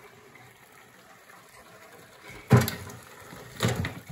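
Cooking water draining from a stainless steel stockpot of seafood boil into the sink, a faint steady pour. Then two sharp knocks, the first and louder one a little past halfway, the second near the end.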